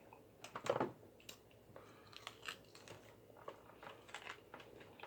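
A person chewing and biting food close to the microphone: scattered mouth clicks and wet smacks, with one louder crunch a little under a second in.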